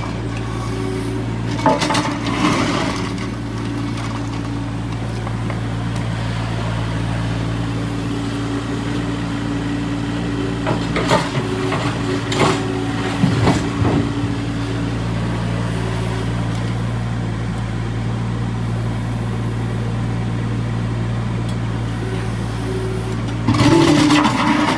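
Excavator's diesel engine running steadily at a constant pitch, with a few short metallic clanks and knocks.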